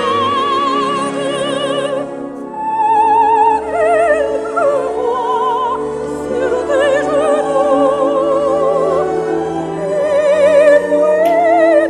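Operatic soprano singing with wide vibrato, carried on high sustained notes, over lower instrumental accompaniment.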